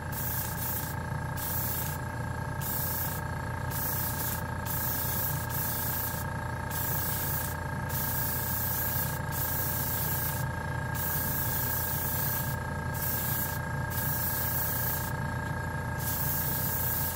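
GSI Creos PS290 trigger airbrush with a fan cap spraying primer: an air hiss that stops for a moment a dozen or so times as the trigger is eased off and pulled again. Under it runs a steady motor hum with a few constant tones.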